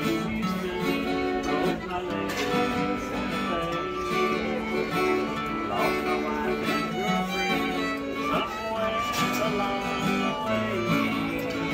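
Live fiddle and guitar playing a country tune together, the fiddle bowing the melody over the guitar accompaniment.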